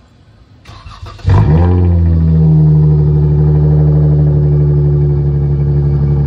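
Cold start of a 2016 Dodge Charger SXT's 3.6-litre V6, heard at the exhaust: the starter cranks briefly about a second in, the engine catches with a short flare of revs, then settles into a steady idle.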